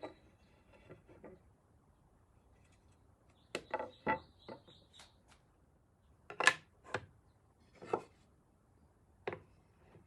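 Hard objects knocking and clacking together in a series of about eight separate knocks, some with a brief high ring. The loudest comes about six and a half seconds in.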